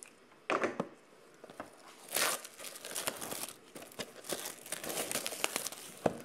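Plastic shrink wrap being cut and torn off a cardboard trading-card box, crinkling in short bursts and then crackling more steadily from about three seconds in.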